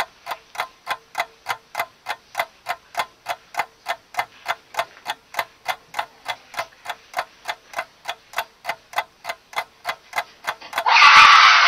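Clock ticking steadily, about four ticks a second, played as a sound effect for time passing while the characters wait. Near the end a sudden loud burst of noise cuts in.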